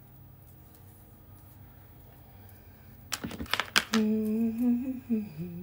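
A woman hums a short, wavering tune near the end, just after a quick run of sharp clicks.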